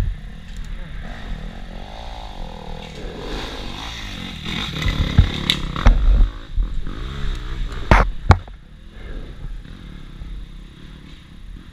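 Dirt bike engine revving up and down while riding a rough wooded trail, with clatter and knocks from the bike about five to six seconds in and two sharp knocks near eight seconds.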